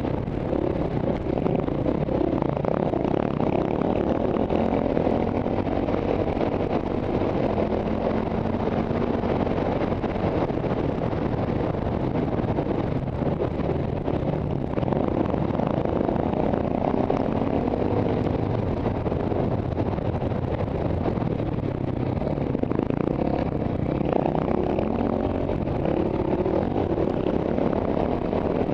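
Single-cylinder KTM enduro motorcycle engine running under way on a sandy trail, heard close from a helmet-mounted camera, its pitch rising and falling as the throttle is worked.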